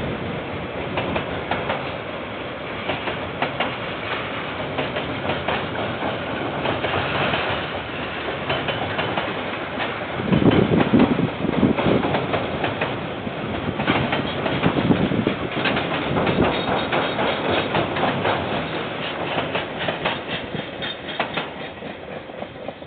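Freight train's container wagons rolling past, their wheels clicking over rail joints over a continuous rumble, loudest around the middle and fading as the last wagons go by near the end. Heard through a security camera's microphone.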